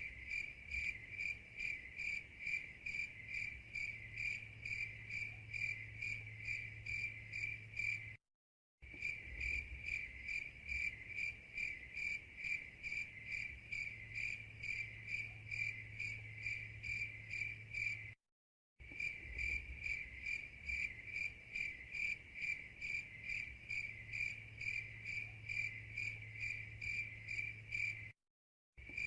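Crickets chirping in a steady, even rhythm of about three high chirps a second: the stock 'awkward silence' cricket sound effect, looped so that it cuts out for a split second about every ten seconds, three times here.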